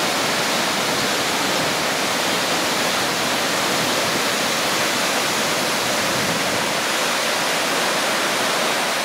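Waterfall cascade rushing: a loud, steady, even wash of falling water.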